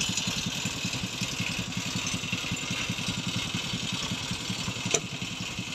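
Mitsubishi Fuso truck's diesel engine idling with a steady, fast, even pulse while the truck stands stalled on a steep grade it could not climb. A single sharp click about five seconds in.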